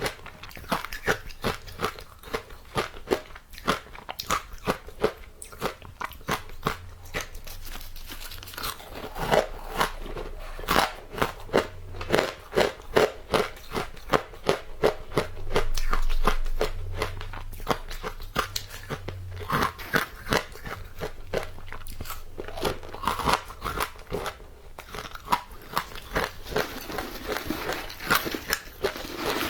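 Crunching and chewing of powdery frozen matcha ice, a quick run of crisp crunches bite after bite, with a longer, louder crunching stretch about halfway through.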